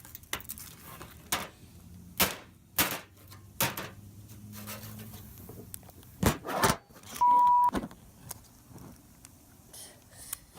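Sharp clicks and clacks of tools clamping and working on a broken iPhone, several separate strikes, with a short steady electronic beep, the loudest sound, about seven seconds in.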